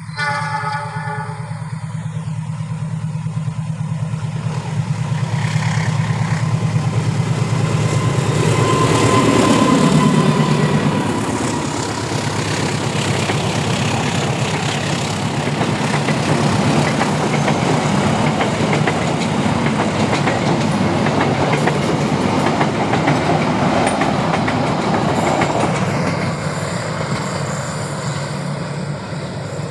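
A diesel locomotive's horn sounds for about two seconds. Then the diesel-hauled passenger train passes close by: the engine drone grows to its loudest and drops in pitch as the locomotive goes past about ten seconds in, and the line of coaches rolls past on the track after it.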